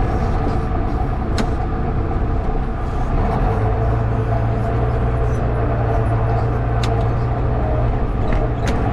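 Farm tractor engine running steadily, with a deeper, steadier low hum setting in about three and a half seconds in and a few sharp ticks.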